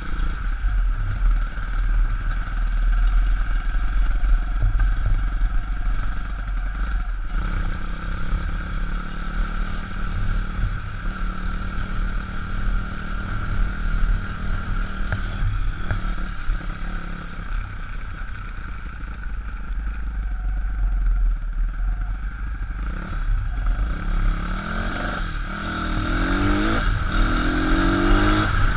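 Pit bike's single-cylinder engine running under way, heard from the rider's helmet. It holds a steady pitch through the middle, eases off briefly a few times, and near the end revs up in several quick rising sweeps as the bike accelerates through the gears.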